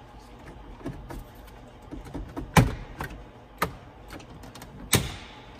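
Sharp plastic clicks and knocks from the 2008 Ford F-350's dashboard trim being worked loose by hand, with two louder snaps about two seconds apart.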